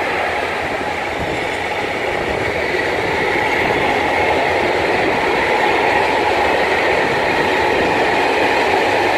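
Freight train of rail tank wagons rolling past: a steady rumble and rattle of steel wheels on rails that holds at one level throughout.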